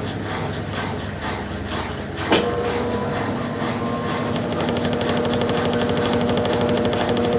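Brastemp Ative! BWC10 top-load washing machine on its rinse cycle: water swishing in rhythmic strokes as the clothes are agitated, then a sharp click about two seconds in, after which a motor hums steadily.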